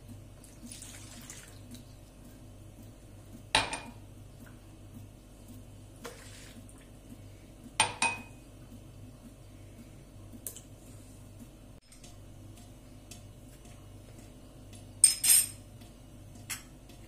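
Kitchen preparation sounds: milk and water are poured into a plastic mixing bowl, and glasses and a metal spoon clink as they are set down. The soft pouring comes twice, and there are four sharp clinks, the loudest a double clink near the end.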